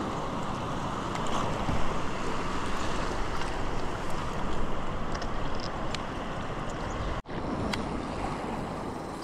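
Sea surf washing over coastal rocks with wind buffeting the microphone, a steady rushing noise. The sound drops out abruptly for an instant about seven seconds in, then the rushing resumes.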